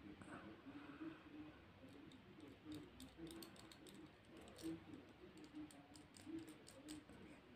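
Faint small clicks of hard plastic Beyblade Burst parts (Blaze Ragnarok's layer) handled and turned between the fingers. The clicks come in a loose cluster through the middle seconds.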